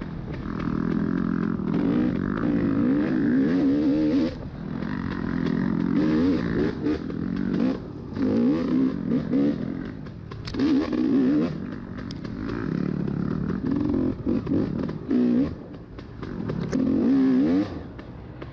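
Dirt bike engine revving up and falling back again and again as the throttle is worked over rough ground, with scattered knocks and rattles.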